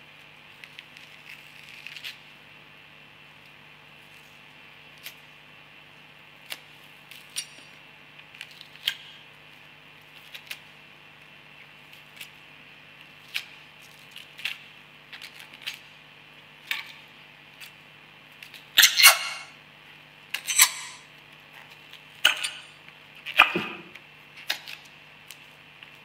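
Dry, papery onion skin crackling and tearing as a white onion is peeled by hand. Scattered small clicks give way to several louder crackling rips in the second half, over a faint steady hum.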